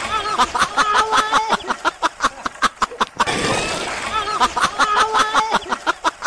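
High-pitched laughter, quick 'ha-ha' bursts several a second, repeated as a loop about every three seconds, like a laugh sound effect added over the footage.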